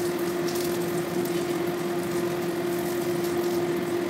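Chicken curry with a little water simmering and sizzling in a kadai, over a steady hum.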